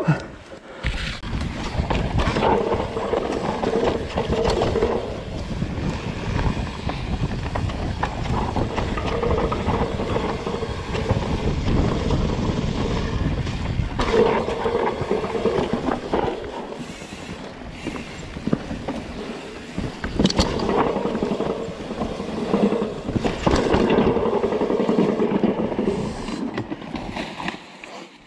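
Mountain bike descending a rough dirt trail: wind rumbling on the bike-mounted camera's microphone, with tyre noise and frequent knocks and rattles as the bike hits roots and bumps.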